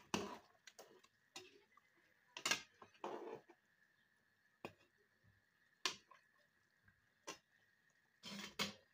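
A metal slotted spoon knocking and scraping against the side of a metal cooking pot as a simmering curry is stirred: about ten irregular clinks, with a couple of longer scrapes about three seconds in and near the end.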